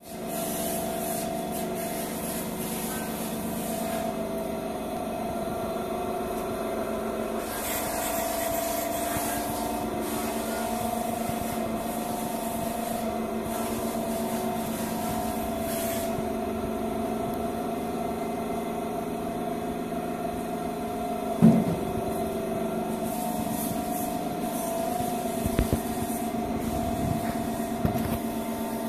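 Niro-Tech WR-130 stainless-steel meat grinder's 9 kW three-phase electric motor running, a steady hum. A sharp knock about two-thirds of the way in and a few lighter knocks near the end.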